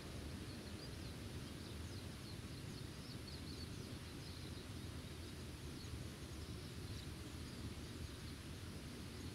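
Outdoor countryside ambience: a steady low rumble, with faint, short high chirps from birds in a cluster about two to four seconds in and again around seven seconds.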